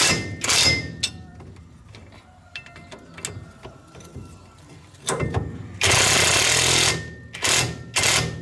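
Cordless impact wrench hammering in short bursts on the bolts joining the propeller shaft's universal-joint flange to the rear differential, a spanner holding the nut behind. There are two bursts at the start and several more from about five seconds in, the longest lasting about a second, with light metal clicks between them.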